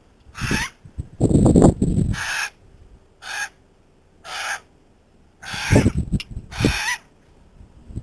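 Currawongs calling: a series of about seven short, harsh calls with quiet gaps between them.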